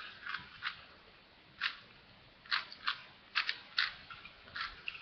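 Unlubricated plastic 4x4 Rubik's cube being turned by hand: about nine sharp, irregular clicks as the layers snap into place.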